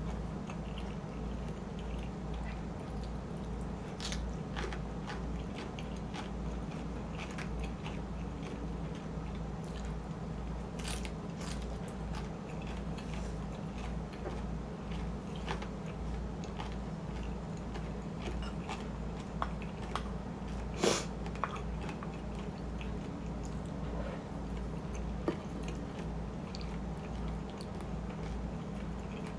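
Close-up chewing and biting of shrimp in chili sauce with rice, with scattered sharp clicks through the eating, the loudest a little past two-thirds of the way in. A steady low hum runs underneath.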